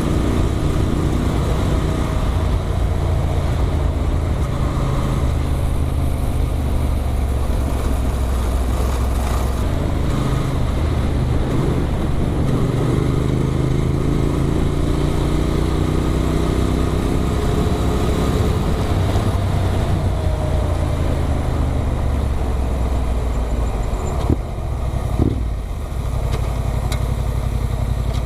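Motorcycle with an Arrow exhaust running under way, its engine note steady under wind rush and shifting in pitch about halfway through. A couple of brief knocks come near the end.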